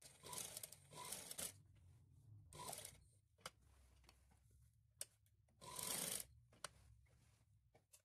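Cloth rustling in a few short, faint bursts as it is folded and handled by hand, with a couple of small clicks in between.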